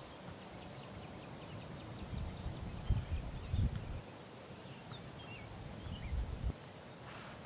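Several birds chirping, with short calls and a few down-sliding notes, over low irregular gusts of wind buffeting the microphone.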